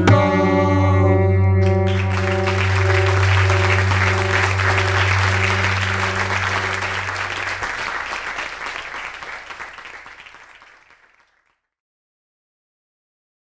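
Acoustic guitars' last chord ringing out at the end of a song on a live recording, as an audience's applause rises about two seconds in and then slowly fades away.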